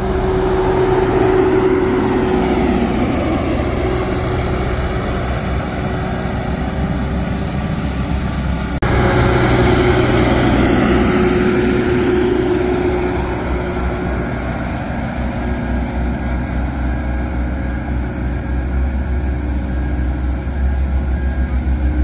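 Diesel engine of a Volvo pneumatic tyre road roller running as it passes close by, a steady drone that grows fainter over the last several seconds as the roller moves away.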